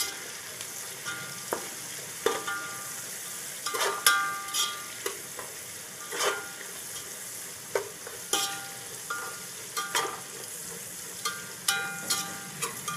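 Sliced onions, green chillies and whole spices sizzling in hot oil in a metal pot while a metal spatula stirs them, knocking and scraping against the pot every second or so, some knocks leaving a short metallic ring.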